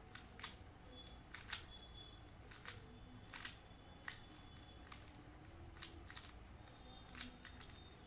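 A plastic 2x2 speed cube being turned by hand: faint, irregular clicks and clacks as its layers are twisted in quick succession.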